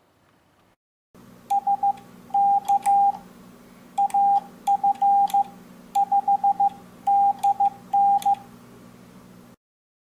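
Morse code sent on an MFJ-422D electronic keyer with an iambic paddle: the keyer's sidetone, a single steady beep keyed in short and long elements, in seven or eight groups. Light clicks come with the keying, over a low steady hum. It starts about a second in and cuts off about half a second before the end.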